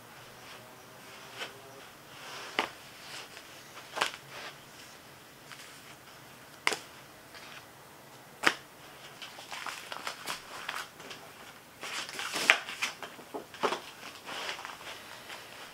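Paper being handled: printed sheets and stapled booklets laid down and shuffled, with scattered sharp clicks and taps and a busier stretch of rustling near the end.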